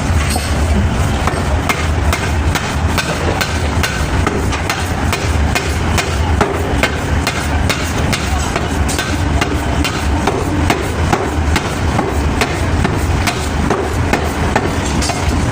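Hammer blows on metal during forging, many sharp strikes a second in an uneven rhythm, over a steady low rumble of machinery.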